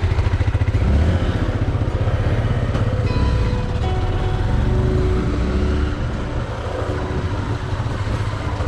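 Motorcycle engine running steadily, its exhaust pulsing in a fast, even beat, with music playing faintly underneath.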